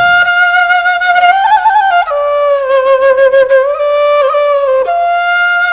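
Background music: a solo flute playing a slow melody of long held notes that bend and slide between pitches, dropping to a lower note about two seconds in and rising again near the end.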